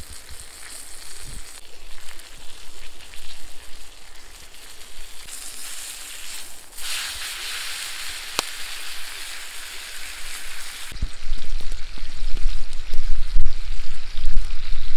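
Tomahawk steak sizzling as it sears in cast iron over a campfire, a steady hiss with one sharp click about halfway. Over the last few seconds a louder low rumble comes in over the sizzle.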